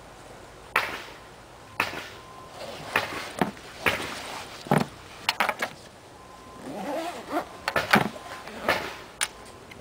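A scoped rifle being slid into a padded denier-fabric gun case and the case being handled: fabric rustling with a series of irregular knocks and bumps, the loudest about halfway through and near the end.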